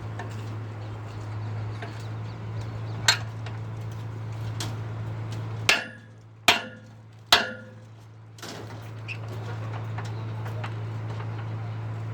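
Concrete pump running with a steady low hum, broken by four sharp metallic knocks a few seconds apart on the pump or its steel pipeline. The running noise drops briefly around the middle knocks, then returns.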